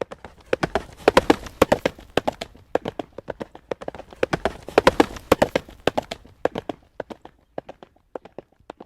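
Horse trotting on a road: a quick, even clip-clop of hooves on the hard surface. It is loudest through the first six seconds, then thins out and fades near the end.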